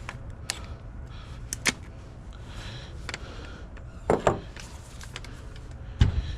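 Scattered small clicks and knocks from handling steering wheel quick release hub parts, with two louder clunks, about four seconds in and again near the end.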